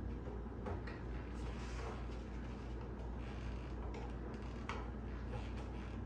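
Scattered light clicks and scrapes of the plastic light cover being fitted back onto a Genie 3055 garage door opener, over a steady low hum.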